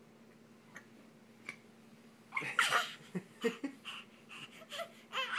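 A baby's short, excited squeals and breathy vocal sounds in quick succession, starting a couple of seconds in.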